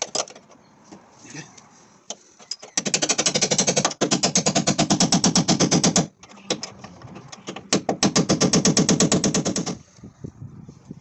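Rapid metal hammering as the locking ring of the fuel pump unit in the fuel tank is driven round: two bursts of about three and two seconds, roughly ten blows a second, with lighter knocks between them.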